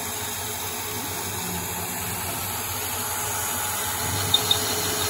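CNC lathe spindle running at 340 RPM with spray-mist coolant hissing steadily, at the start of a rough facing pass on D2 tool steel. About four seconds in, two sharp clicks, then light ticks about five a second as the tool begins to cut.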